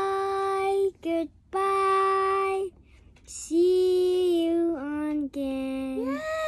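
A child and a female voice singing a goodbye song without accompaniment: long held notes with short breaks between them, then near the end a note that swoops up and slides slowly down.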